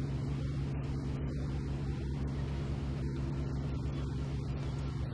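An engine running steadily with a low, even drone and a fine throb.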